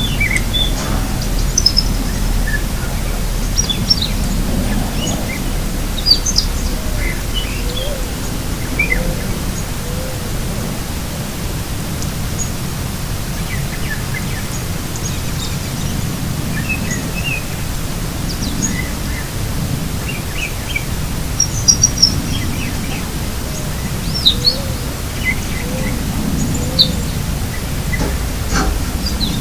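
Birds chirping here and there, short scattered calls throughout, over a steady low outdoor rumble.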